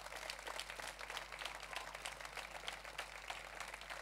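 Audience applauding: many hand claps blending into a steady patter.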